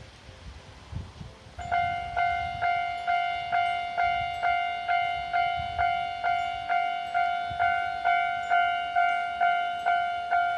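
Railway level-crossing warning bell starting about a second and a half in, then ringing steadily at about two strikes a second: the signal that a train is approaching. Before it, only a faint low rumble.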